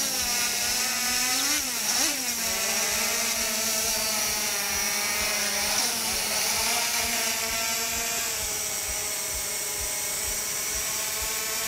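Quadcopter's electric motors and propellers spinning up suddenly for takeoff, a loud whine with a steady pitch. The pitch swings up and down about two seconds in, during a rough takeoff, then holds steady as it hovers.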